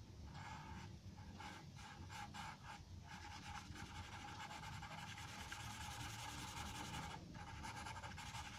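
Charcoal pencil scratching on drawing paper in shading strokes. At first the strokes are separate, then comes about four seconds of fast, continuous back-and-forth hatching, a brief pause, and a few more strokes near the end.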